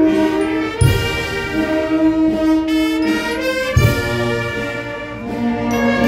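Procession brass band playing a slow funeral march: held brass chords over a bass drum struck twice, about three seconds apart.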